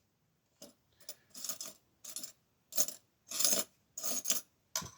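Metal lock-picking tools clicking and scraping in and against a brass padlock: about eight short metallic ticks and scrapes with brief silent gaps between them.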